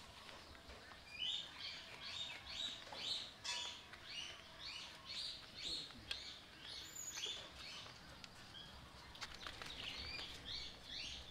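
A run of short, high-pitched chirps, about two or three a second, pausing for about two seconds after seven seconds and starting again near the end.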